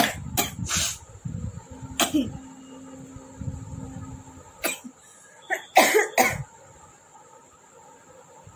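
A person coughing in short, sudden bursts: a few near the start, one about two seconds in, and a cluster of three or four around five to six seconds in. The coughs come in place of the sneeze the person is trying to force.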